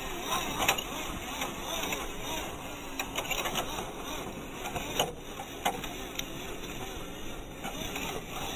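A WPL B-1 1:16 RC truck's small electric motor and gearbox whirring steadily as it crawls over rough dirt and stones, with several sharp knocks along the way.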